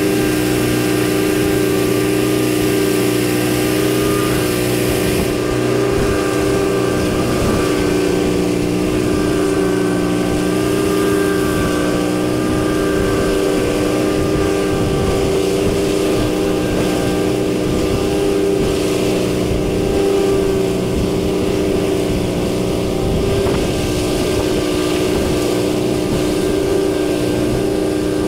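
Engine of a trailer-mounted straw blower running steadily at a constant speed, driving straw out through a long discharge hose across the ground.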